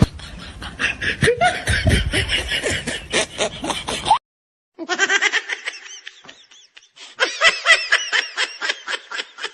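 Laughter sound effects: a run of quick snickering laughter, a short silent gap about four seconds in, then a second, thinner clip of rapid high-pitched chuckling.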